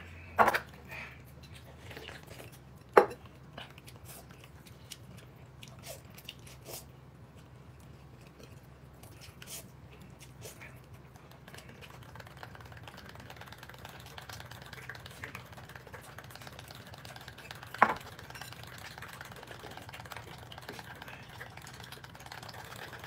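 Quiet eating at a table: a few sharp clinks of tableware, the loudest about three seconds in and another late on, over faint eating sounds and a low steady hum.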